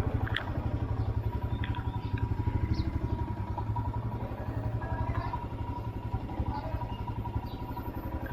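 Royal Enfield Himalayan's 411 cc single-cylinder engine running at a steady pace while the motorcycle is ridden, a continuous low exhaust thump. The engine is brand new and in its break-in period.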